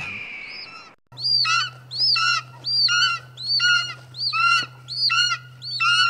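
Film sound effect of attacking birds of prey: shrill, arched screeches repeating about every three-quarters of a second over a steady low hum. The screeches start after a brief cut-out about a second in.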